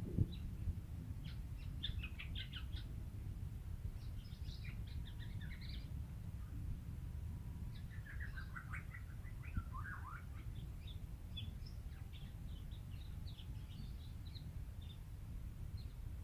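Juvenile black-naped oriole calling: clusters of rapid, short chirping notes lasting a second or two each, separated by brief pauses, over a steady low background rumble. A single sharp click sounds just after the start.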